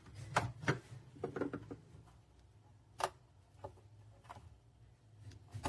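Light clicks and knocks of plastic parts inside a countertop mini dishwasher being handled, with one sharper click about three seconds in.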